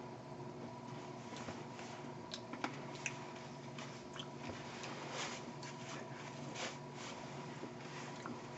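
Soft rustling of a quilted nylon jacket and scattered small clicks from hands and mouth as a man signs, over a steady electrical hum with a faint high tone.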